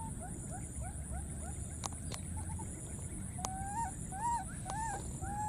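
Baby monkey calling: four short, arching cries in the second half, over a steady run of quick rising chirps, about three a second.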